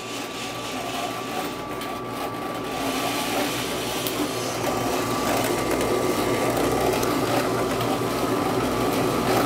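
Rubasse coffee roaster running near the end of a roast: a steady mechanical whir and rush of air with a thin high whine, growing louder over the first three seconds or so, as the automatic end of the roast (discharge) gets under way.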